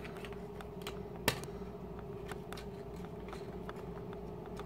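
Fingers and fingernails clicking and tapping on a small plastic cosmetic container while prying at it to get it open, with one sharper click a little over a second in. A steady hum runs underneath.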